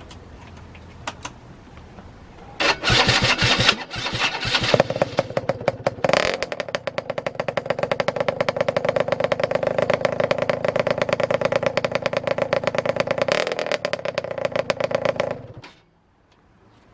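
Yamaha RZ50's small two-stroke engine, with a Lips expansion chamber, catching with a few sharp revs, then idling with a fast, slightly ragged popping beat for about nine seconds before it is switched off.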